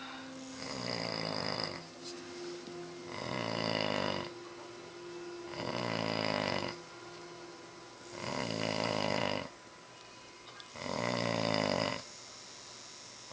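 Snoring in a steady rhythm: one long, rasping snore about every two and a half seconds, five in all.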